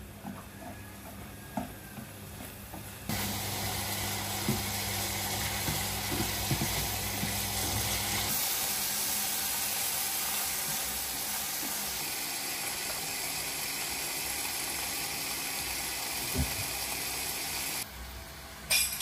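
Meat frying and sizzling in a frying pan while being stirred with chopsticks. The sizzle starts suddenly about three seconds in and cuts off shortly before the end; before it there is only a low hum and a few light clicks.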